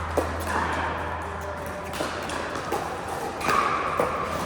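Pickleball paddles hitting a plastic ball in a rally: about four sharp knocks spaced a second or so apart, over background noise.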